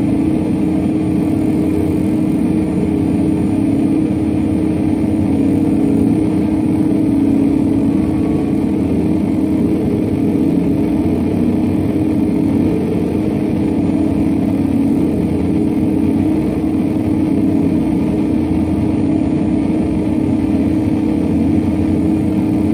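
Electric guitar sound run through a double set of effects pedals, transformed into a loud, steady, dense drone that holds without breaks or distinct notes.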